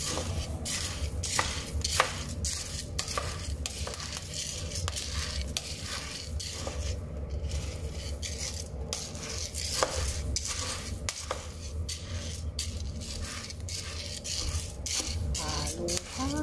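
Raw green coffee beans rattling and scraping in a pan as a wooden spoon stirs them during pan-roasting, with a dense, irregular patter of clicks from the beans and spoon against the pan.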